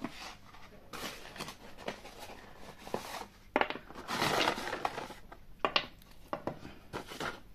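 Paper packaging rustling and crinkling as hands rummage through a parcel, with a few light clicks; the loudest rustle comes about four seconds in.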